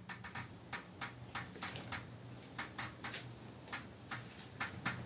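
Glass pane of a sliding window rattling in its frame: irregular light knocks and ticks, about three or four a second and crowding closer near the end, over a faint steady low hum. The glass is being shaken by a distant boom.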